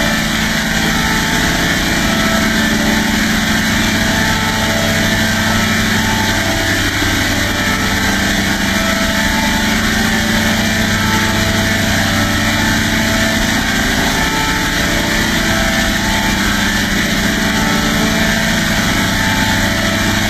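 A steady mechanical drone: an even noise with a low hum underneath, unchanging throughout.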